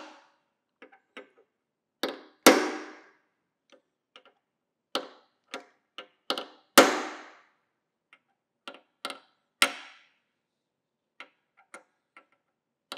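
Hammer striking a punch to drive the drive screws of a metal serial number tag home into a lathe's base: irregular sharp metallic taps, mostly light, with a few hard blows that ring briefly.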